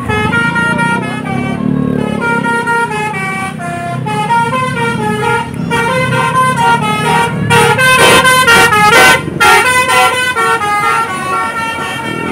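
Bus telolet basuri horn playing a quick tune of stepped notes over the low running of the bus engine, loudest about two thirds of the way in.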